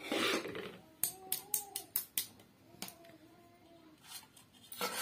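Metal spatula clicking and scraping against a steel plate as hot cooked rice is tipped out and spread on it: a short rush at the start, a string of sharp clicks, and a louder clatter near the end.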